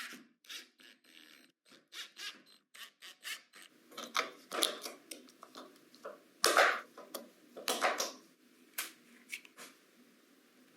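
Irregular scraping and rubbing strokes from hand-working small craft materials with a tool. The strokes come in uneven runs, louder about four seconds in and again from about six to eight seconds, then die away near the end.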